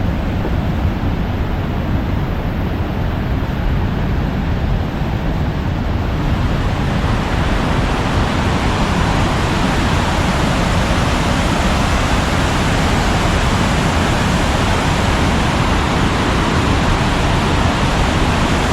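Swollen, muddy river after heavy rain rushing in a steady, loud roar of water, growing fuller and brighter about six seconds in.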